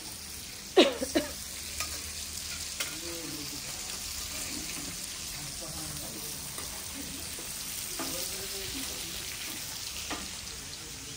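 Semolina-coated fish shallow-frying in oil on a flat griddle (tawa), sizzling steadily. A few sharp metal clanks sound about a second in, from a spatula working the pan.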